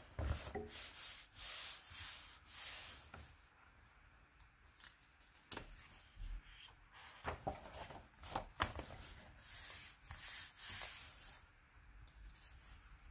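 Pages of a paperback coloring book being turned and smoothed flat by hand: faint paper rustling and rubbing, with a few crisper page flicks a little past the middle.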